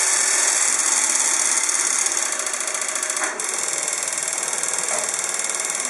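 Rebuilt Tunny machine running as it is zeroed after its program is set up: a loud, rapid electromechanical chatter that drops a little about three seconds in and stops abruptly at the end.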